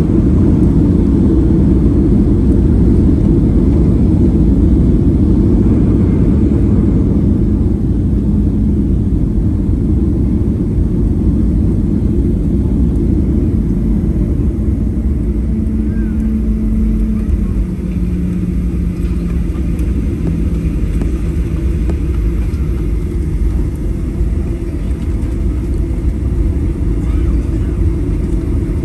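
Boeing 737-800 slowing on the runway after touchdown, heard from inside the cabin: a steady low rumble that eases as the jet loses speed, with a faint hum that drops in pitch about two-thirds through.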